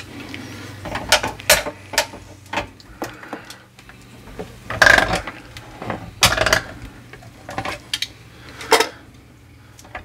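Irregular metallic clinks and knocks of two wrenches working the brass fitting under a ProFlo thermal expansion tank as it is unscrewed from the water heater's supply pipe. The loudest clanks come about five seconds in and again near the end.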